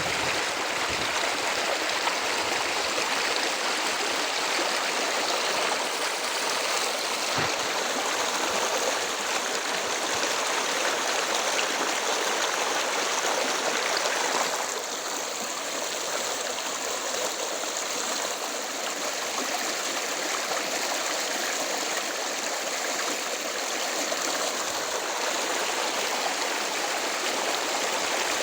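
River water rushing steadily over rocks, an even full wash of flowing water that drops slightly in level about halfway through.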